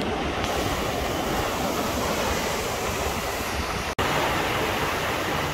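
Small ocean waves breaking and washing up the wet sand, a steady rush of surf noise, broken by a momentary dropout about four seconds in.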